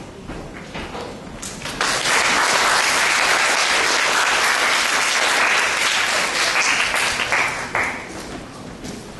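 Audience applauding: a few scattered claps at first, then full applause for about six seconds, dying away near the end.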